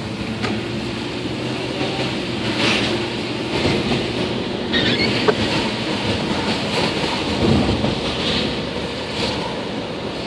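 Car driving on a wet city street, heard from inside the cabin: a steady rush of tyres on wet pavement over a low rumble, with scattered short knocks and spatters.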